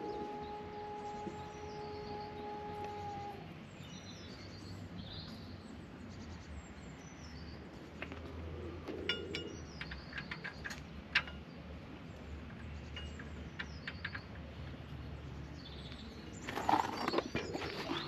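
Birds chirping repeatedly in short falling phrases over a steady background hum. A few sharp metallic clicks come about halfway, and a louder clatter near the end. A steady tone stops about three seconds in.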